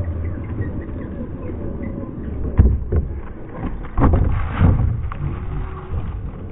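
Radio-controlled scale Hilux double-cab crawler driving through loose sand, its tyres spinning and throwing sand, with a low rumble and several sudden loud thumps about halfway through.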